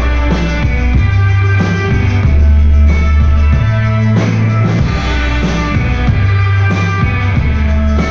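A live rock band plays a song with electric guitar, drum kit and keyboard over sustained deep bass notes.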